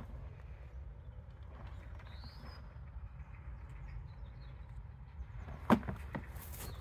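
Outdoor ambience: a steady low rumble, one short high bird call about two seconds in, and a couple of sharp knocks near the end.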